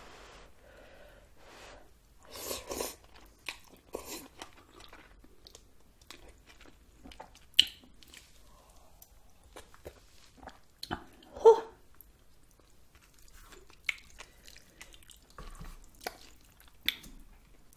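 A person chewing and eating spicy noodle soup close to the microphone, with scattered sharp clicks, the loudest about eleven and a half seconds in.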